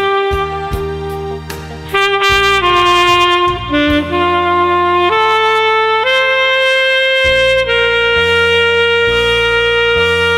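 Saxophone playing a slow melody of long held notes over an accompaniment with bass.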